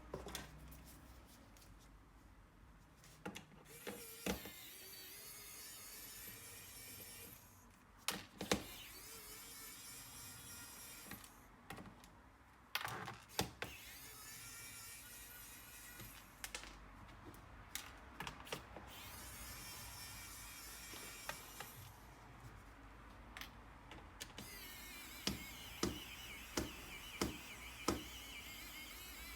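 Small electric screwdriver whirring in several spells of a few seconds each, with sharp clicks and taps of tools and screws on a laptop's plastic case in between; a quick run of taps near the end.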